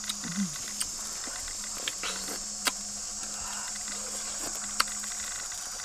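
Steady high-pitched chirring of insects, with a few sharp clicks of spoons against bowls during eating; the loudest click comes near the end.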